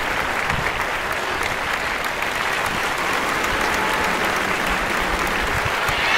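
Spectators clapping steadily, applause for a goal, with a few shouting voices joining near the end.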